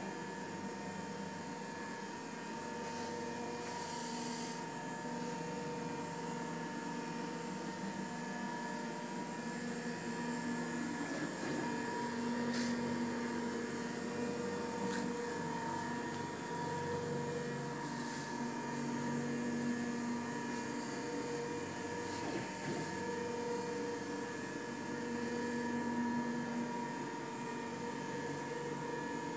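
CNC router running under test: a steady machine hum with a whining tone from the stepper motors that grows stronger in stretches, about twelve seconds in and again near the end, as the gantry moves along its X axis.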